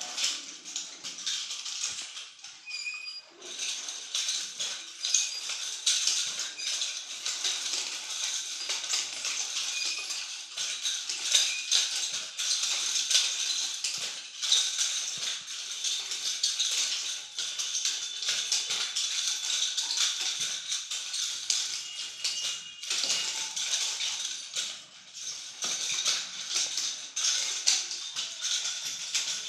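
Nunchaku being swung continuously, their chain rattling and clicking in a dense, irregular jingle, with occasional sharper clacks.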